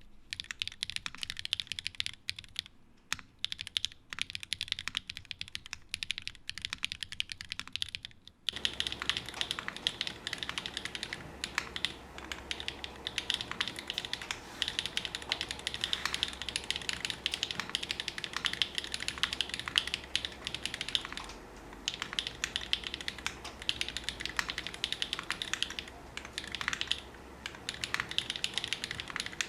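Continuous fast typing on a 60% mechanical keyboard with SW x Gateron Deepping 4.0 linear switches (nylon housings, POM stems) in an FR4 plate with GMK keycaps: a dense run of keystrokes bottoming out. About eight and a half seconds in, the sound changes to a more distant recording with a steady low hum and more room noise under the keystrokes.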